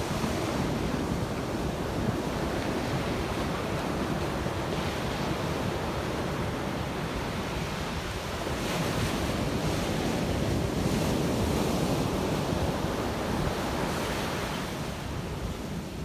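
Ocean surf washing up a sandy beach: small waves breaking and running up the shore in a continuous wash, growing louder about halfway through.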